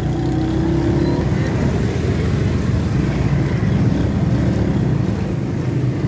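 Motorcycle engine running steadily while being ridden.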